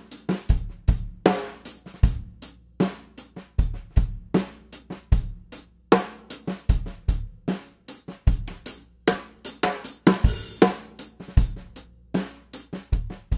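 Drum kit playing a steady groove of kick, snare and hi-hat with the backbeat deliberately played badly: the snare hits vary widely in loudness and land off-centre. This uneven backbeat is the kind of playing that makes a snare sound cheap and amateur.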